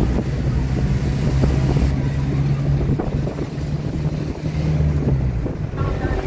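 Pickup truck engine humming with road noise while riding in the open truck bed, wind buffeting the microphone.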